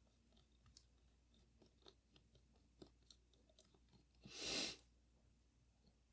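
Faint small clicks and taps of tools and small metal parts being handled during a Leica IIIF camera teardown, with one short hiss of air about four seconds in.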